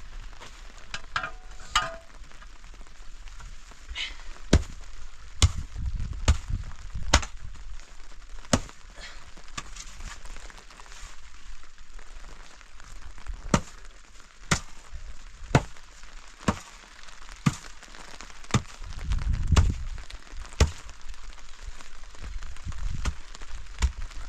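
Repeated blows of a hand tool: a steady run of sharp knocks, roughly one a second, with heavier low thuds about six seconds in and again near twenty seconds.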